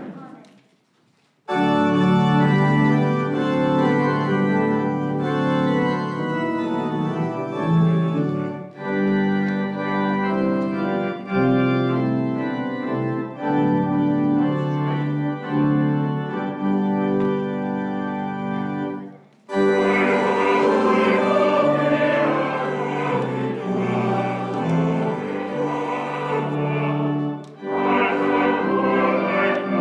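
Church organ playing a hymn, starting about a second and a half in after a short pause. About twenty seconds in, after a brief break, voices begin singing the hymn with the organ.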